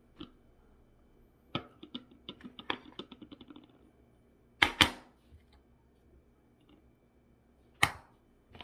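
Kitchen utensils and cookware clattering: a quick run of small clicks and taps coming closer together, then a few sharp knocks.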